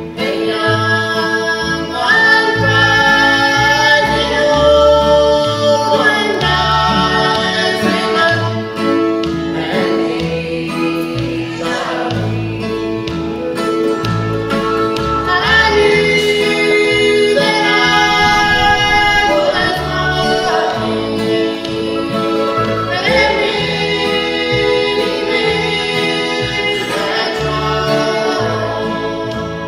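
A bluegrass string band playing a gospel song: a woman sings the lead over strummed acoustic guitar, mandolin, fiddle and upright bass, with a man's voice singing along near the end.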